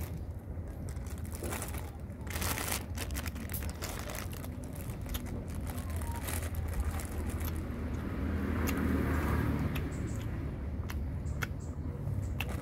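Eating noises: a plastic bag crinkling and a plastic spoon clicking against it as food is scooped out, with chewing, over a steady low rumble that swells somewhat in the second half.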